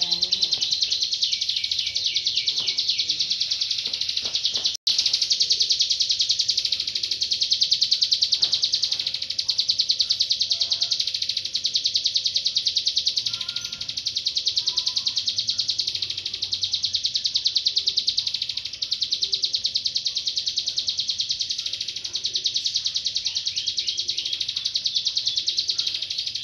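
Hill prinia (ciblek gunung) singing a long, rapid, high-pitched chattering trill of fast repeated notes, broken for an instant about five seconds in.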